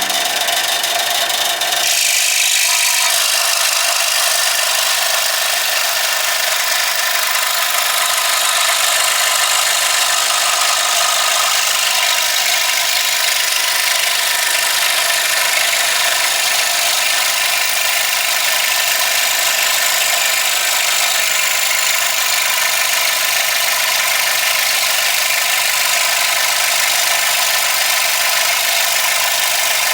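Scroll saw running steadily, its blade cutting through a piece of wood.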